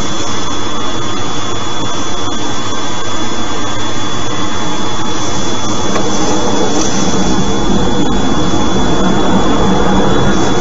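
Loud, steady rushing noise of a moving car's road and wind noise as picked up by a dashcam microphone, with a thin steady high tone running under it.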